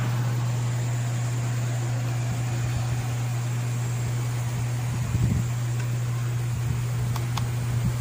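Small portable USB air-cooler fan with mist humidifier running steadily: a constant low hum with airy noise. Brief handling knocks come about five seconds in, and a few light clicks near the end as its control buttons are touched.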